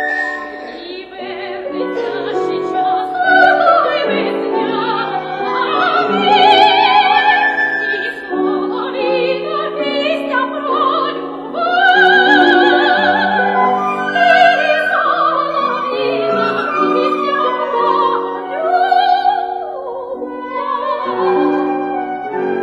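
Operatic soprano singing high, long-held notes with wide vibrato over piano accompaniment, in a classical art song.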